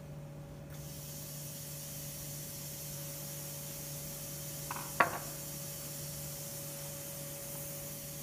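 Steady hiss of compressed air in a pneumatic soft gripper on a robot arm, over a steady low machine hum, with one sharp click about five seconds in as the gripper holds the mushroom.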